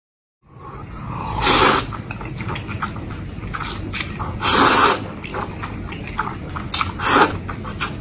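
Noodles being slurped up with chopsticks: three loud slurps about three seconds apart, with wet chewing and lip smacking between them.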